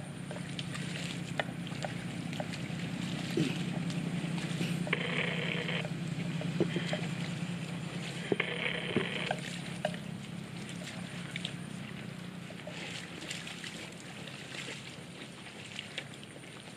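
Water buffalo grazing in shallow flooded grass: scattered wet tearing and sloshing clicks as they crop the grass, over a steady low hum. Two short, higher-pitched buzzing sounds come about five and eight seconds in.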